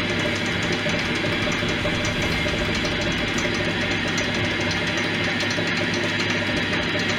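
Metal lathe running with a steady motor and gear hum as a cutting tool turns a recess into a spinning solid brass billet.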